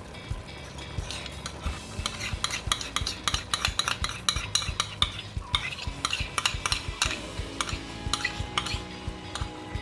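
Noodles being stirred in a pan of simmering dark-soy-sauce broth, a utensil clinking and scraping against the pan in quick, uneven strokes that start about two seconds in.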